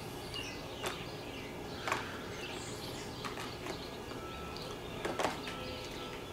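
A handful of short, light clicks and taps from chainsaw parts being handled and fitted by hand during carburetor reassembly, over a steady background hiss.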